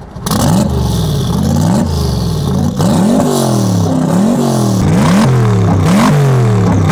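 Aston Martin drift car's V8 engine being revved hard through its side-exit exhaust in repeated quick throttle blips, the pitch rising and falling about every half second.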